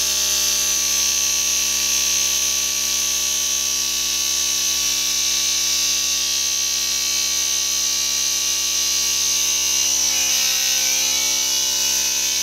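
A small, cheap piston air compressor, run from a motorcycle through an SAE plug, running steadily as it pumps air into a motorcycle tire. Its piston is going very fast.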